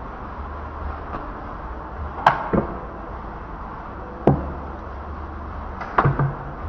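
Cleaver chops on a wooden chopping block: five sharp strikes, a pair about two seconds in, a single one a little past four seconds and another quick pair near six seconds, over a low steady hum.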